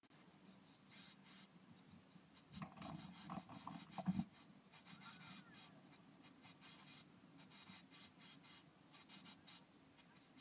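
Faint scratching and rustling as blue tit chicks shift about in the nest material inside the nest box, with a run of soft knocks and one louder bump about four seconds in.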